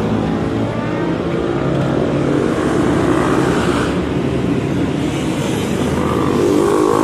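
Motorcycles riding past one after another in a column, their engines running steadily, mixed with passing car traffic.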